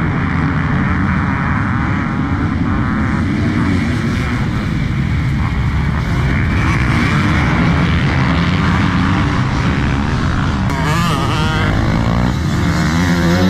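Pack of motocross dirt bikes racing, many engines revving hard at once, with revs rising and falling as bikes pass through the corners.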